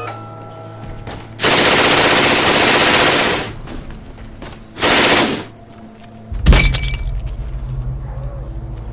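Video game gunfire: a long burst of rapid automatic fire, then a shorter second burst. About two-thirds of the way through comes a single loud boom, the loudest moment, and its low rumble lingers.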